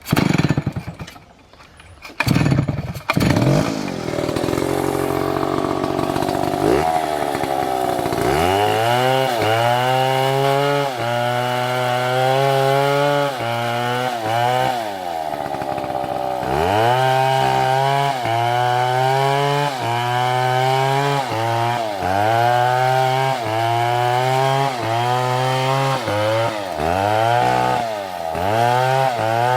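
Two-stroke chainsaw running at high revs and cutting wood: its engine pitch sags and recovers every second or so as the chain bites and clears. There are a couple of short dips where the revs fall and pick up again.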